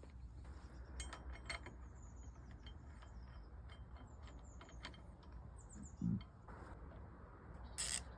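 Faint, scattered metallic clicks and clinks of motorcycle handlebar parts and tools being handled, with a dull knock about six seconds in and a few sharper clicks near the end.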